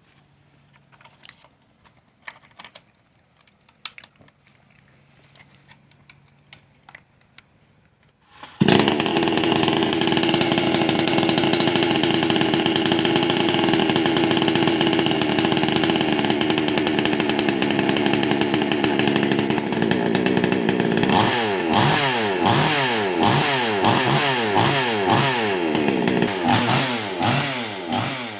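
HL PROO 5800 two-stroke chainsaw running on a newly fitted carburettor. After a few light clicks and knocks, the engine starts suddenly about eight seconds in and runs steadily. In the last seven seconds it is revved up and down again and again, each rev falling away.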